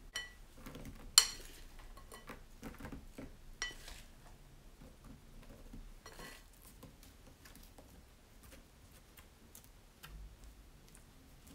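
A utensil clinking against a dish three times, each strike ringing briefly, the loudest about a second in, as spiced onion pieces are spooned out onto the dough. Then faint soft rustles and ticks of fingers spreading the onions over the buttered dough.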